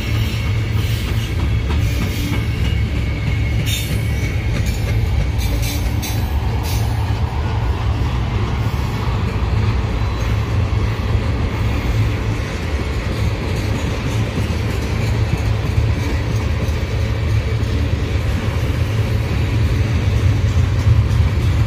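Cars of a passing mixed freight train rolling by on the main line: a steady rumble of wheels on rail, with a few sharp clicks in the first several seconds.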